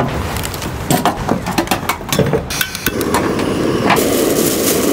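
Hand-cranked coffee grinder: a few clicks and knocks as it is handled, then from about three seconds in the steady rasping crunch of beans being ground.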